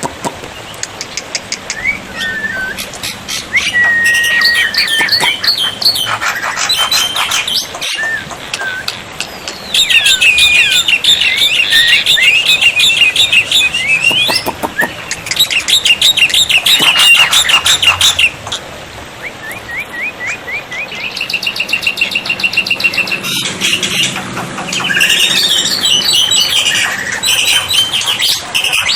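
Black-winged myna (jalak putih) singing a long, varied song of whistled notes, rapid chattering trills and buzzy rattles, loudest in the middle.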